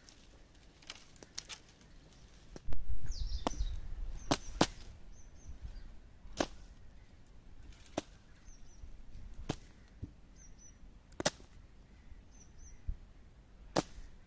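A series of sharp, irregular snaps and cracks, about a dozen, typical of unripe tamarind pods and twigs being snapped off a tree. There is a brief low rumble about three seconds in, which is the loudest sound. Short, faint, high bird chirps come between the snaps.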